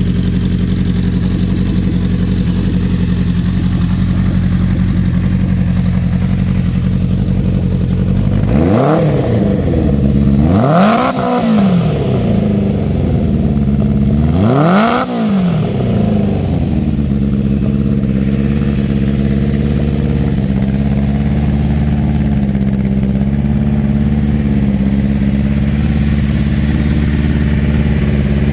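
1973 Honda CB500 Four's air-cooled inline-four engine idling through a Delkevic 4-into-1 exhaust. The throttle is blipped three times, at about nine, eleven and fifteen seconds in; each rev rises and falls back to a steady idle.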